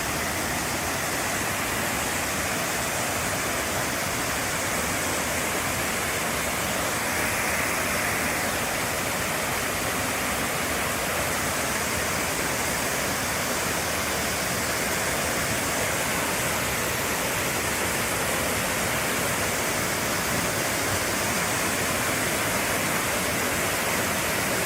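Steady rushing of a waterfall, Dry Falls, heard up close: a constant, even roar of falling water.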